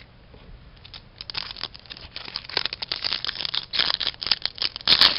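Hands handling a stack of Upper Deck hockey trading cards and their foil pack wrapper: a rapid crinkling rustle that starts about a second in and grows louder, with a sharp click near the end.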